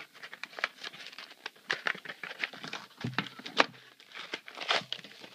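Yu-Gi-Oh! trading cards and their plastic pack wrapping being handled: a quick, uneven run of light flicks, taps and crinkles.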